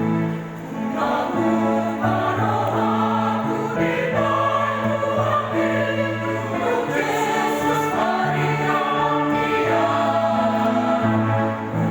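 Church choir singing in several-part harmony, holding long chords that change every second or two.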